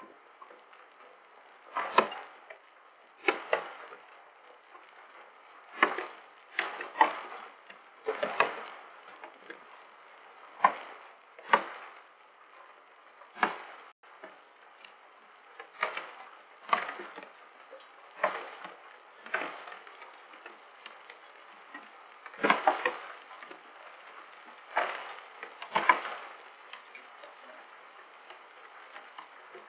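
Hailstones knocking sharply and irregularly on a hard surface close to the microphone, roughly every one to two seconds, over a steady hiss of falling hail and rain.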